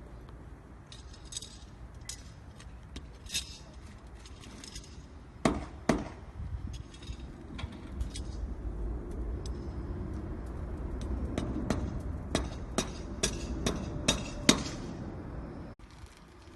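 Irregular sharp knocks and clinks of hard objects striking, over a low steady rumble: two loud strikes about five and a half seconds in, then a quick run of knocks near the end.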